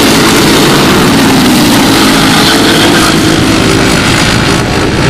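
A pack of Briggs & Stratton Animal single-cylinder four-stroke racing kart engines running together at race speed. Several engine notes overlap and waver in pitch as the karts pass through a turn and pull away down the straight.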